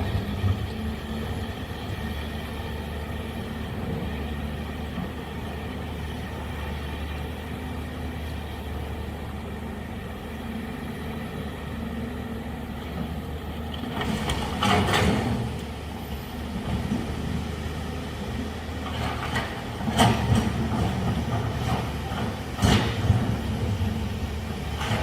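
Large excavator's diesel engine running steadily, with several sharp knocks from about halfway on.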